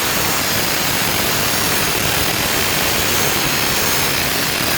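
Angle grinder with a 6-inch electroplated diamond wheel cutting through metal stock, aluminum, a steady loud grinding noise that holds through without a break.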